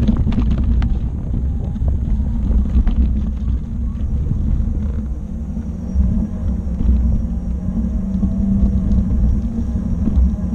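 Steady low rumble of a Gotway ACM16 electric unicycle's tyre rolling over a rocky dirt trail and then pavement, mixed with wind buffeting the microphone. Sharp clicks of loose gravel come in the first second or so.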